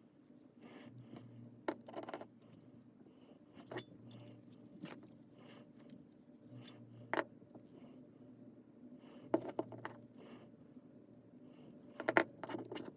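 Light metallic clinks and scrapes of small metal parts being handled, with scattered sharp taps and the loudest cluster of clicks near the end.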